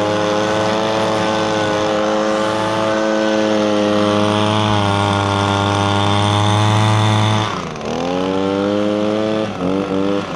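Echo PB250LN handheld leaf blower's 25.4 cc two-stroke engine running at full throttle, steady and high-pitched. About seven and a half seconds in the throttle is let off and the pitch drops, then it revs back up and is blipped a few times before falling back near the end.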